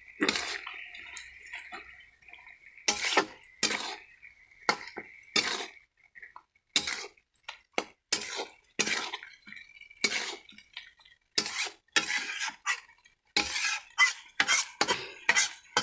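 Metal spatula scraping and knocking against an iron kadai as mutton pieces are stirred and turned in the dry-frying (kasha) stage. The strokes come at irregular intervals and grow quicker near the end.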